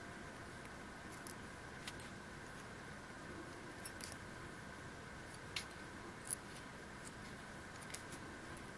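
Faint, scattered small clicks and ticks from a fly-tying bobbin and thread being handled while wrapping thread around a foam body, about half a dozen over a steady low hiss.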